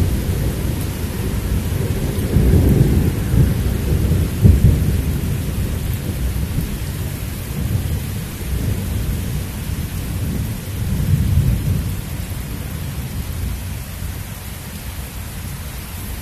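Thunder rumbling in long swells, loudest from about two to five seconds in and again around eleven seconds, then dying away, over a steady hiss of rain.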